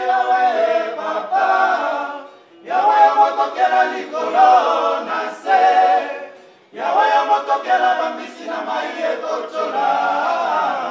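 A group of men singing together in harmony, in phrases broken by two short pauses, about two and six and a half seconds in.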